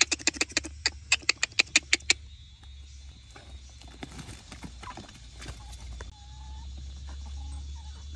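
A quick run of about a dozen sharp knocks, five or six a second, then scattered fainter clicks.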